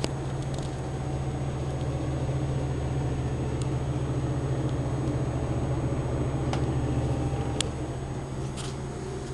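PC case cooling fans running with a steady low hum that swells a little and eases off again, with a few faint clicks.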